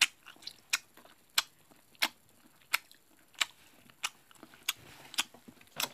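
Close-up chewing of mozzarella cheese stick as ASMR, a string of sharp wet mouth clicks about every two-thirds of a second.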